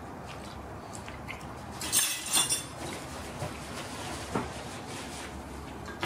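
A paper napkin rustling briefly, a crinkly burst about two seconds in, followed by a couple of light clicks of tableware.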